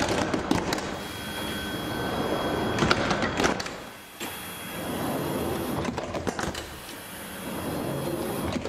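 Electric sliding doors of a light-rail car running through their cycle: the overhead door drive whirs as the leaves travel on their rollers, with clunks and clicks as they move and stop, a few times over.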